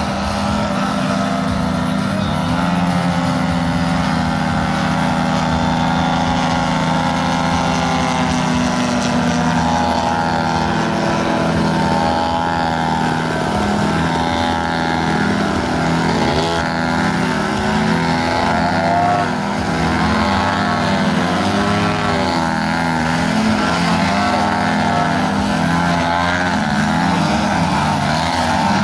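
Engine of a large-scale radio-control Ultimate aerobatic biplane, a DA-85 two-stroke gasoline engine, running under constant throttle changes. Its note keeps rising and falling as the plane hovers and tumbles.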